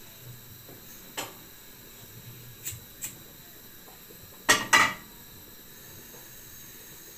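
Frying pan and kitchen utensils knocking and clinking as they are handled: a few light clicks, then two louder knocks in quick succession about four and a half seconds in.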